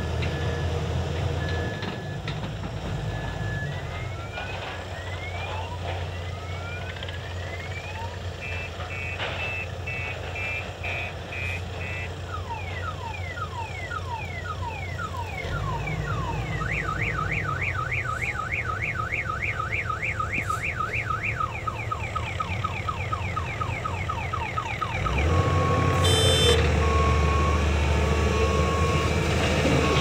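A multi-tone electronic alarm cycling through patterns (rising whoops, a run of quick beeps, then fast warbling sweeps) over the steady running of a crawler excavator's diesel engine. The engine gets louder near the end, with a short repeating beep.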